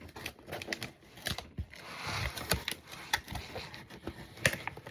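Packaging handled by hand: a string of small clicks, crinkles and scrapes, with a longer rustle about two seconds in.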